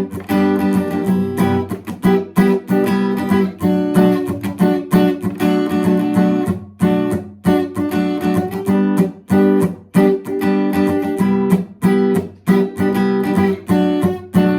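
Acoustic guitar strummed in a steady rhythm of short, sharp down-strums on the top four strings, moving through a repeating chord progression.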